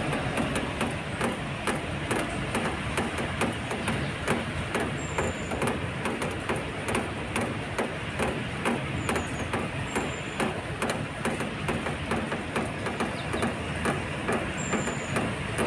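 Steady rain with a dense, irregular patter of drops tapping on an awning, over a low rumble of car traffic.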